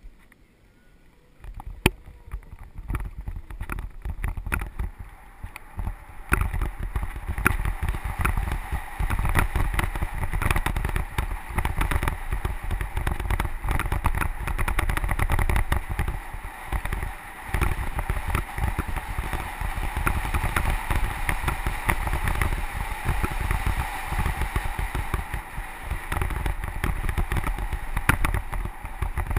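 Mountain bike rolling fast down a dirt and gravel trail: wind buffeting the GoPro's microphone in a steady low rumble, with tyre crunch and many sharp rattles and knocks from the bike over the bumps. It starts about a second and a half in and gets louder about six seconds in.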